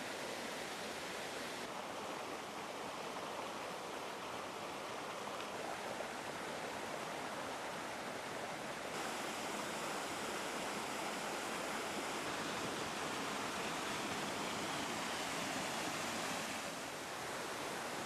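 Water from a small waterfall rushing and splashing down a rocky cascade, a steady rushing noise whose tone shifts slightly a few times.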